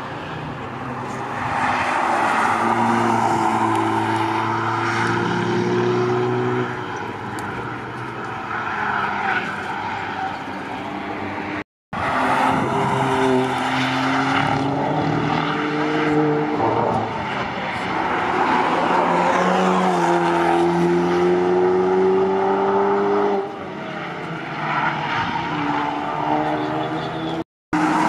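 Sports and hot-hatch road cars driving through a corner on the Nordschleife one after another, engine notes rising as they accelerate and falling off as they lift or shift, over tyre and road noise. The sound cuts out abruptly for a moment about twelve seconds in and again near the end.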